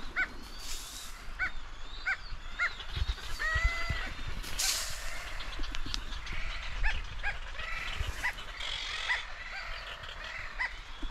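Seabirds of a nesting colony calling over and over, many short rising-and-falling cries overlapping. There is a brief rustling hiss about four and a half seconds in, and a few soft low thumps just before it.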